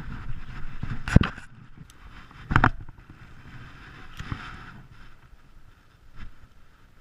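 Knocks and thumps on a fishing boat, two loud ones about a second and two and a half seconds in and a few fainter ones later, over a faint steady hiss.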